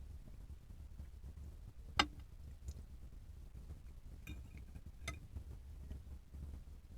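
A few light clinks of cutlery against a dish, the sharpest about two seconds in with a brief ring, over a low steady hum.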